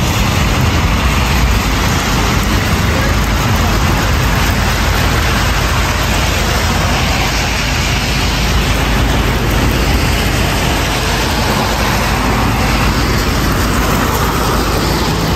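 Steady outdoor rushing noise with a heavy low rumble, even and unbroken, with no clear single event standing out.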